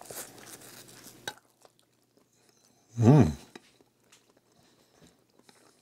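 A man bites into a slice of calzone and chews, with faint crackles and small clicks from the crust in the first second or so. About three seconds in comes a short hummed 'mmm'.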